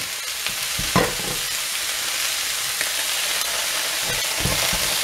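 Chopped vegetables sautéing in hot oil in a frying pan, a steady sizzle, with a few knocks and scrapes of a plastic spoon stirring them in the pan, about a second in and again near the end.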